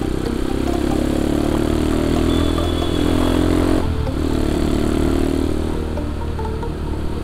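Motorcycle engine running steadily under throttle, over a constant hiss of rain and water spray from a flooded road. About four seconds in, the engine note drops briefly, then picks up again.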